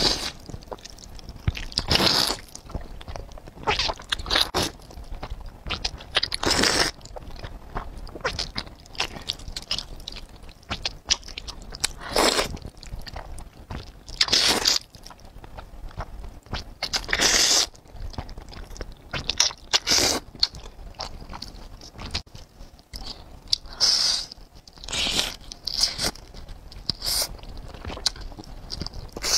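Mouth sounds of eating noodles in black bean sauce: repeated short, loud slurps of noodles every couple of seconds, with wet chewing between them.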